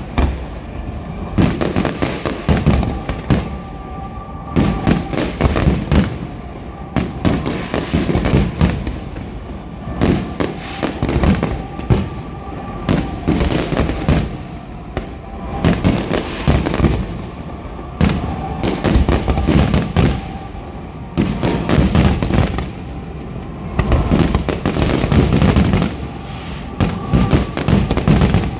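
Fireworks display going off: dense volleys of bangs and crackles in clusters a second or two long, with short lulls between.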